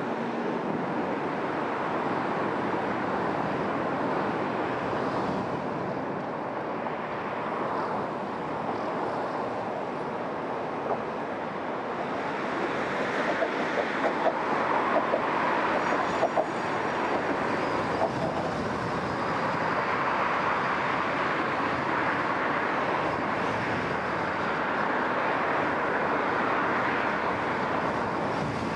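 Steady tyre and road noise with wind rush from a moving car, picked up by a microphone mounted on the car's outside, with a run of short sharp knocks about halfway through.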